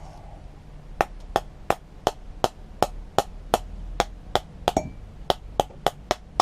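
A run of sharp taps, about three a second, knocking at a stuck carburettor float bowl on a Briggs & Stratton mower carburettor to free it; the bowl is held tight.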